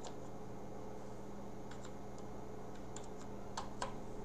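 Computer keyboard keys clicking faintly a few times, in scattered keystrokes with a short cluster near the end, over a steady low electrical hum.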